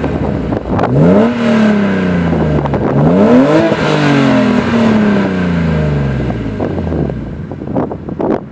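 BMW E36 325i straight-six, breathing through custom headers, an M3 euro cat section and an AC Schnitzer rear muffler, revved up quickly twice and left to fall slowly back to idle each time, settling at idle near the end.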